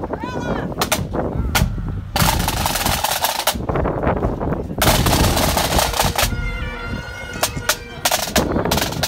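Marching pipe band: bagpipes sounding their steady drone and melody, with sharp snare drum strokes. Gusts of wind buffet the microphone through the middle.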